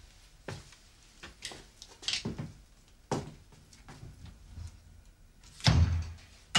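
Irregular knocks and clatters of someone moving about a small kitchen and handling things, with a heavier thud about six seconds in and a sharp knock at the end.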